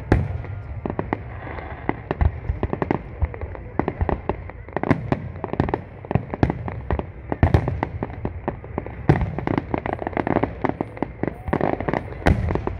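Fireworks display: aerial shells bursting in rapid, irregular succession, many sharp bangs overlapping with crackling and deeper booms.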